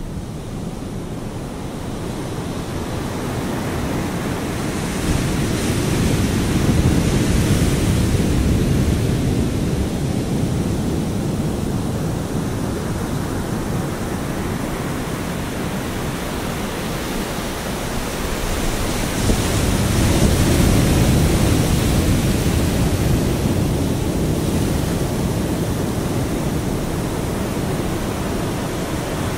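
Heavy ocean surf breaking and rushing over a rocky, pebbly shore, a steady loud wash that swells with a big wave about five seconds in and again about twenty seconds in.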